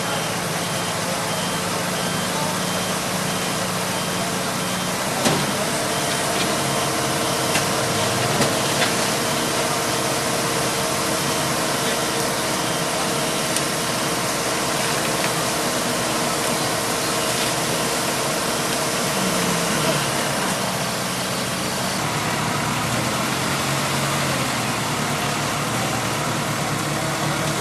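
Street ambience at a roadside crash scene: vehicle engines idling and traffic noise with indistinct voices in the background, and a sharp knock about five seconds in.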